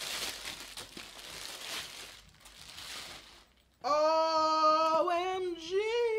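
Thin plastic packaging crinkling and rustling as a backpack is pulled out of its wrapping for about three and a half seconds. After a brief pause, a woman gives a long, drawn-out, half-sung exclamation of delight ("OMG!"), held and then sliding in pitch; this is the loudest sound.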